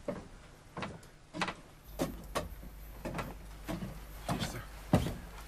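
Footsteps on wooden veranda deck boards, about two steps a second, growing louder as the walker comes closer, the loudest step near the end.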